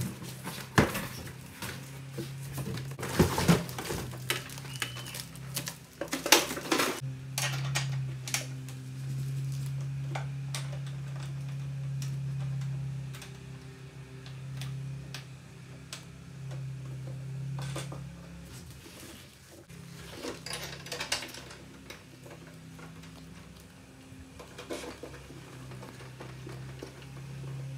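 Handling noises from unpacking and assembling a push mower: cardboard rustling and parts knocking and clattering, busiest in the first several seconds, with a few more clicks later. A steady low hum runs underneath from about a quarter of the way in.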